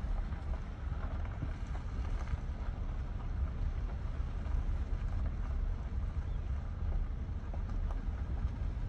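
Low, steady rumble of a vehicle on the move, with wind buffeting the microphone.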